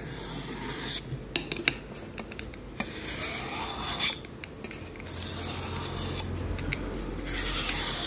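Stainless-steel kitchen knife blade drawn repeatedly along a honing steel, a series of quiet rasping strokes. The edge has already been given a pass on the steel, so not much is heard.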